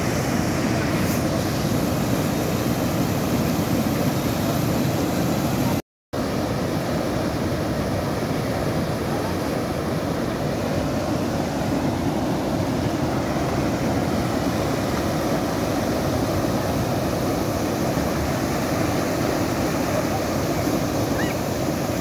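Muddy floodwater rushing over the rocky spillway of a reservoir in a steady loud roar of cascading water. The sound cuts out for a moment about six seconds in.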